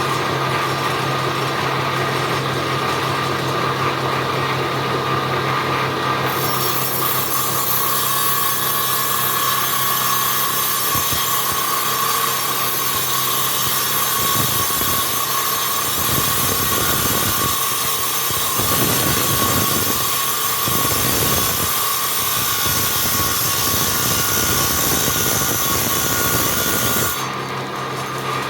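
A woodworking power tool running with a steady whine, cutting into wood from about six seconds in until shortly before the end, with a hiss and uneven surges while it cuts.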